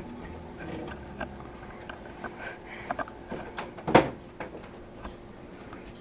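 Scattered light knocks and clicks of things being handled in a kitchen, with one sharper knock about four seconds in, over a faint steady hum.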